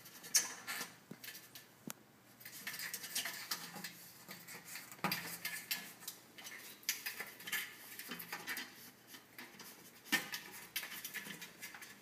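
A cat's claws scratching and scraping at the edge of a sliding glass door as it paws the door open: irregular scratchy rasps and clicks, with the door rattling in its frame.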